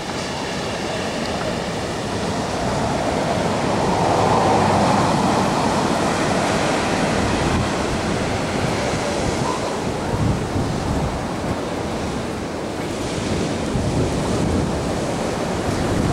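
Ocean surf washing steadily onto the beach, with wind buffeting the microphone.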